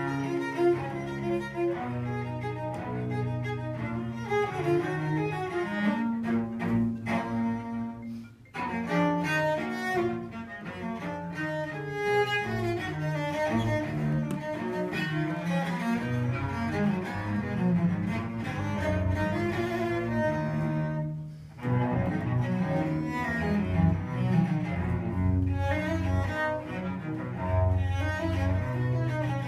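Cello played with a bow, a melodic passage of changing notes with two brief pauses between phrases, about eight and twenty-one seconds in.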